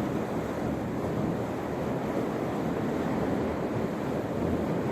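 Steady rushing noise of wind buffeting the camera's microphone.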